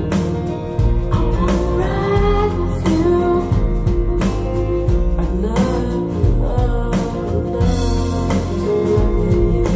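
A song with a woman singing over guitar and bass, played back through a pair of CSS Criton 1TDX two-way DIY bookshelf speakers as a listening demo.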